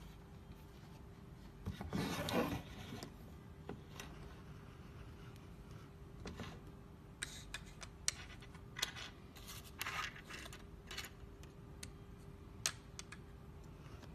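Paper and packaging being handled: a scraping rustle about two seconds in, then scattered small clicks, taps and short rustles, over a faint steady hum.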